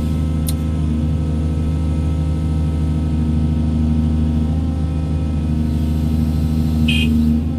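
Doosan 210W wheeled excavator's diesel engine running steadily under work. A sharp click comes about half a second in, and a short high chirp just before the end.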